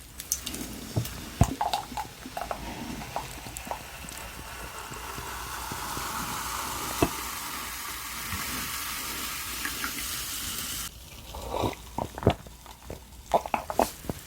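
LA galbi (thin-cut beef short ribs) sizzling in a hot pan, a steady frying hiss with scattered pops and clicks, which cuts off abruptly about eleven seconds in. Close-up clicks and smacks follow near the end.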